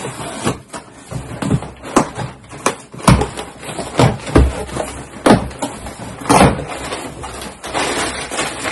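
Objects and boxes being handled and set down: an irregular run of sharp knocks and bumps, followed by a steadier rustling toward the end.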